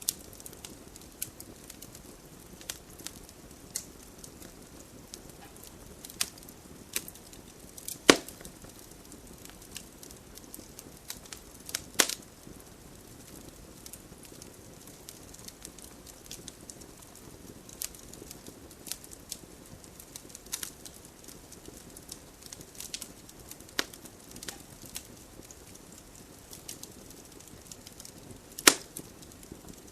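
Wood campfire burning with a soft steady hiss and irregular crackles, with sharper pops about 8, 12 and 29 seconds in.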